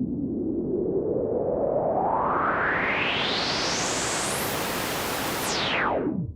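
Hardware synthesizer noise-sweep effect: a filtered rush of noise rising steadily in pitch for about five seconds, then sweeping quickly back down and cutting off near the end.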